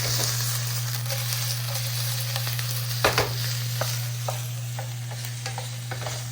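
Chicken pieces sizzling as they fry in a hot pan, with a utensil clicking against the pan now and then, loudest about three seconds in. A steady low hum runs underneath.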